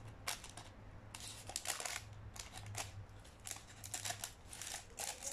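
Paper bag rustling and crinkling in many quick, short strokes as it is handled and folded.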